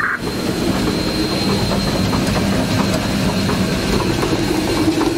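Narrow-gauge steam locomotive under way, heard from its cab: a steady rumble with rapid, irregular clicking and clattering from the wheels on the rails and the running gear.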